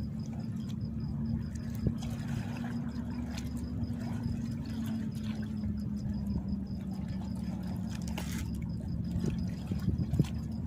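Steady low motor hum, strongest for the first half and then weaker, with a few soft clicks from a fishing hand line being hauled in by hand.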